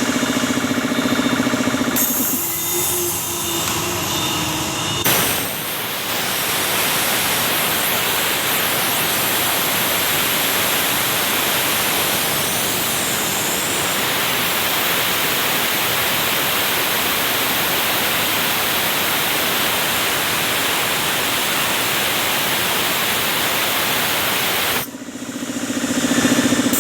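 Swan 1 hp three-phase electric air compressor running with a steady pitched hum, which gives way after a few seconds to a long even hiss of compressed air rushing out for about twenty seconds; the compressor's hum comes back near the end.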